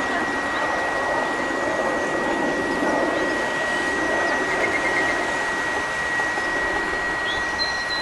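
Steady machine-like rushing noise with a constant thin high whine, and a short run of about five faint bird chirps about halfway through.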